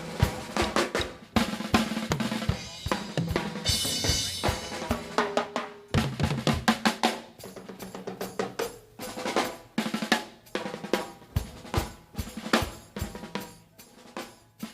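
Live drum kit solo: fast snare rolls and rimshots over bass drum kicks, with a cymbal splash about four seconds in. The strikes thin out in the last few seconds.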